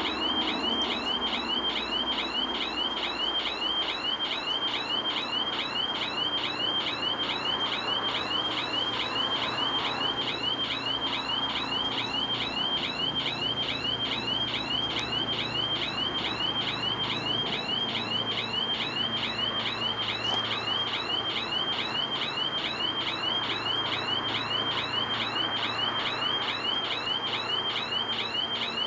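Level crossing warning bell sounding: a high electronic warbling chirp repeating steadily about twice a second, the signal that a train is coming.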